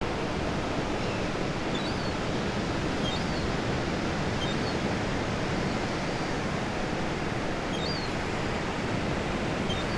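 Steady wash of ocean surf, with faint seagull cries every second or two.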